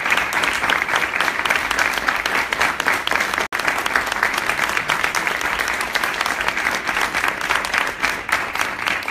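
Audience applauding: many people clapping steadily, with a split-second dropout about three and a half seconds in.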